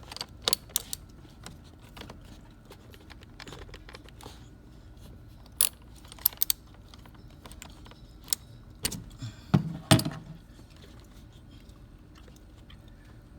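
Scattered metallic clicks and clinks of a wrench working a car battery's terminal clamp, with a louder clatter of several knocks about nine to ten seconds in.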